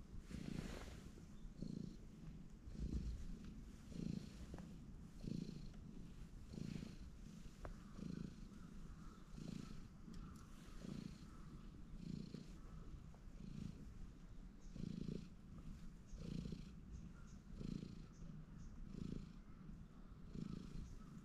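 Orange-and-white cat purring steadily on a lap, close to the microphone, in even swells about every second and a half.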